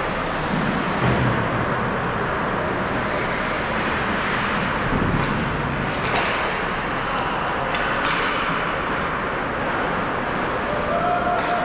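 Steady noisy ice-rink ambience during play in an ice hockey game, with skates on the ice and a couple of sharp stick or puck clacks past the middle.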